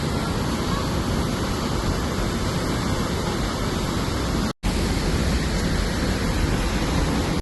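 Waterfall rushing, a steady, even roar of falling water. It breaks off for a split second about four and a half seconds in.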